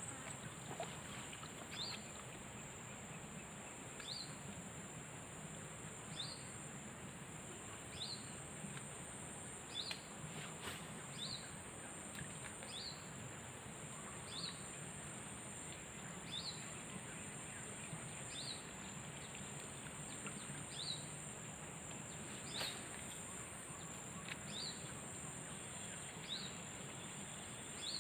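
A bird repeating a short, high, falling call about every one and a half seconds, over a steady high-pitched insect drone and faint background hiss.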